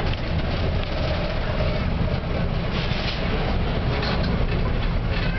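Engine and road rumble inside a moving Isuzu single-deck bus, heavy and low, with light rattling from the bodywork and fittings.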